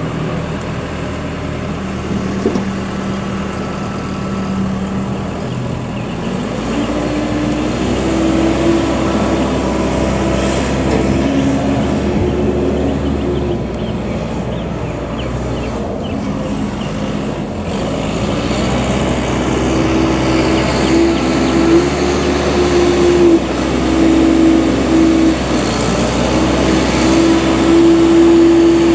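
Case 580M XT skip loader's diesel engine running as the machine drives, its engine speed rising about a quarter of the way in, easing off in the middle, and climbing higher again through the second half.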